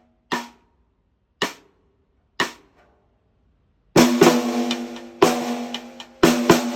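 TAMA Starclassic Walnut/Birch 14x6.5 snare drum struck with sticks: three lighter single strokes about a second apart, then from about four seconds in harder strokes with a ringing tone, some of them doubled.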